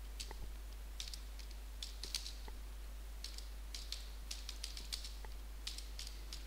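Computer keyboard being typed on: irregular, quick key clicks over a steady low hum.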